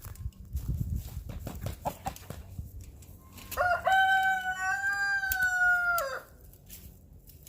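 A rooster crows once: a long call of about two and a half seconds starting a few seconds in, held fairly level and dropping in pitch at the end. Before it, scattered knocks and clicks of handling or work.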